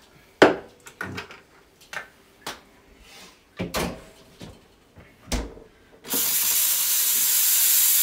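Short knocks and clatter of a milk jug and stainless milk pitcher handled on a countertop. About six seconds in, the Breville Dual Boiler's steam wand opens with a loud, steady hiss of steam.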